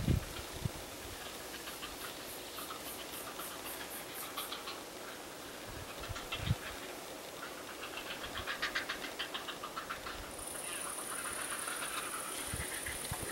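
Grey heron chicks at the nest giving rapid ticking begging calls in quick runs, one starting about two seconds in and a longer, denser one from about seven and a half seconds in. A steady high-pitched whine sets in about ten seconds in.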